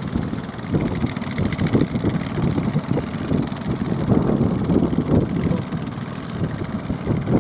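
Engines of outrigger fishing boats running as they come in close, mixed with wind buffeting the microphone.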